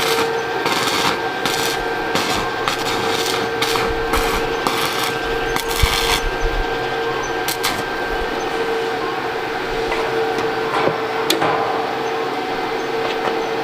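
Metalworking power tool running on an iron frame with a steady hum. Repeated harsh rasping bursts come about twice a second for the first half, then give way to a few sharp clicks.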